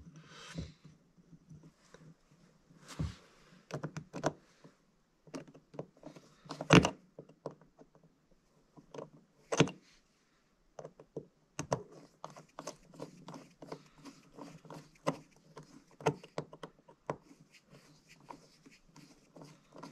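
Screws being fitted into the stacked aluminum plates on a snowmobile carburetor and turned with a screwdriver: scattered light metal clicks and taps, with a few sharper knocks, the loudest about seven seconds in.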